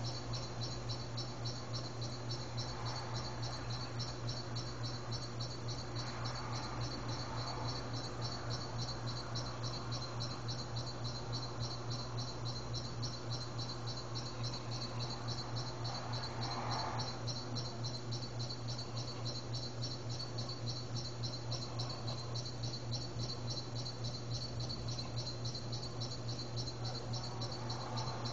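Insects chirping in a fast, even, unbroken pulse over a low steady hum, with a few faint swells of background noise.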